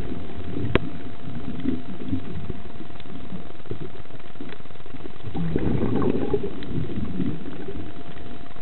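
Underwater noise picked up by a diver's camera: a steady low rumble under a faint constant hum, with a single sharp click just under a second in. About five and a half seconds in, a burst of bubbling swells up for about a second, then dies back.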